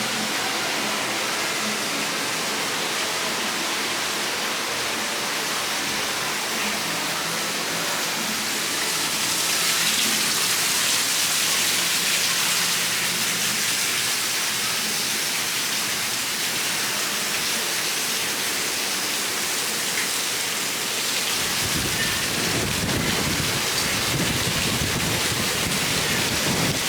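Heavy rain falling in a thunderstorm, a steady hiss of rain. A low rumble joins in about three quarters of the way through.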